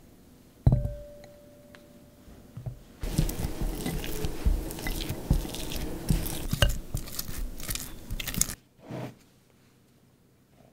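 A block of unsalted butter drops into a glass mixing bowl about a second in, a thud with a short ring of the glass. From about three seconds in until near the end, a spatula mashes and creams the soft butter against the bowl, a dense squishing and scraping.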